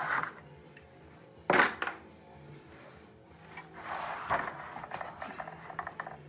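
Metal clunks and scraping as a stripped-down high-pressure air compressor on its metal base plate is turned around on a wooden bench. There is one sharp knock about a second and a half in, and a longer scraping rattle with small clicks around four seconds in.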